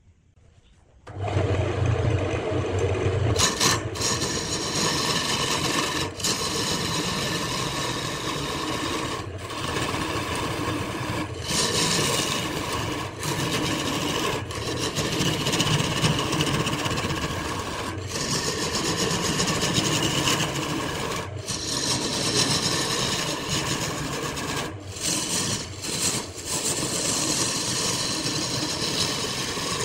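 Wood being worked on a running wood lathe: a steady rasping scrape of a tool against the spinning wood that starts suddenly about a second in, with many brief breaks.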